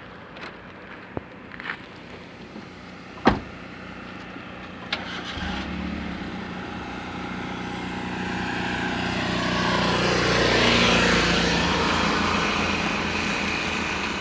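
A road vehicle approaching and passing, building to its loudest about ten seconds in and then fading. A few sharp clicks come in the first seconds.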